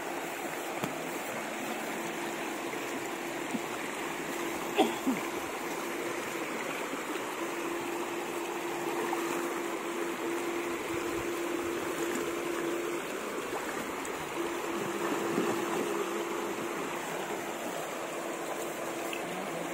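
Shallow river water running over rocks, with a steady low hum that cuts out and comes back a few times, and a sharp knock about five seconds in.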